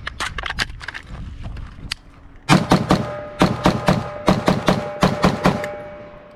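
AR-style rifle firing a rapid string of about a dozen shots, beginning about two and a half seconds in and stopping just before the end, with a ringing tone carrying between the shots. Lighter clicks and knocks of the rifle being handled come before the string.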